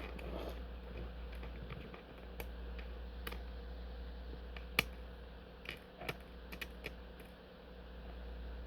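Scattered light clicks and taps from small hard objects being handled, irregular, with the sharpest click about five seconds in, over a steady low hum.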